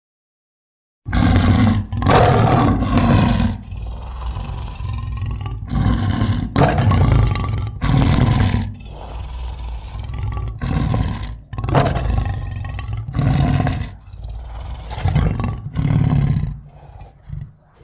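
Giganotosaurus creature sound effect: deep dinosaur roars and growls. After about a second of silence comes a run of short, loud roars, with lower rumbling growls between them, dying away near the end.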